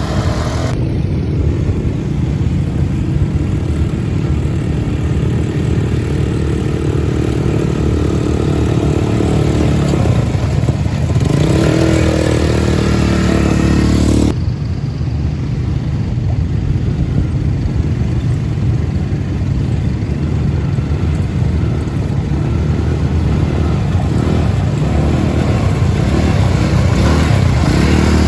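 A vehicle's engine running while it is under way, with a heavy, steady low rumble. Its pitch shifts up and down briefly about halfway through. The sound changes abruptly just after that, as at a cut.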